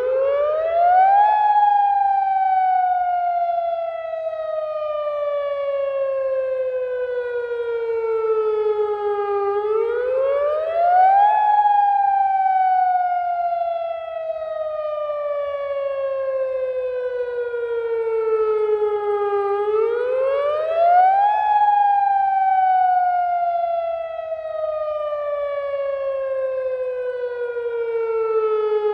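Outdoor all-hazards alert (AHAB) warning siren sounding a test of its alert tone. The pitch rises quickly over about a second and a half, then falls slowly for about eight seconds, and the cycle repeats about every ten seconds, three times.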